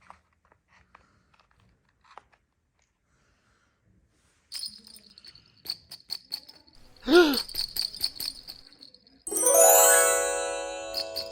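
A few seconds of near silence with faint clicks, then jingling with sharp ticks and a brief swooping tone. A quick rising run of bell-like chimes follows and keeps ringing.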